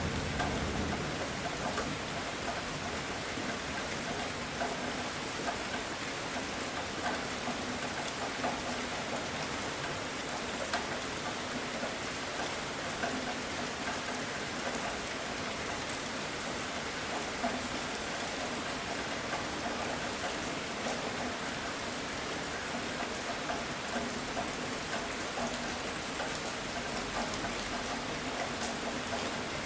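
Heavy rain falling steadily, a dense even hiss with small patters, as a thunderstorm passes. The tail of a low thunder rumble dies away in the first second.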